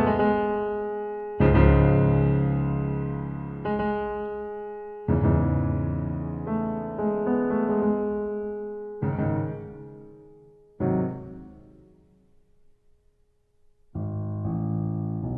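Slow solo piano music: chords struck a few seconds apart and left to ring and fade, falling almost silent for about two seconds near the end before the playing resumes.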